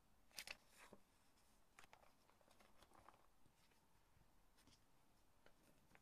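Faint, close paper rustling and light taps as hands handle papers in a leather wallet, with two sharp clicks about half a second in.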